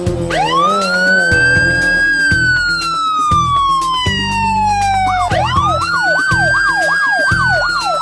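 Police siren sound effect wailing: it rises quickly, then falls slowly over a few seconds, then rises again about five seconds in, with a fast yelping warble joining it. Background music with a beat plays underneath.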